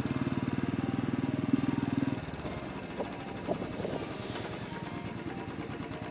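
Motorcycle engine running with a rapid, even pulsing beat; about two seconds in it gets quieter, as if easing off the throttle.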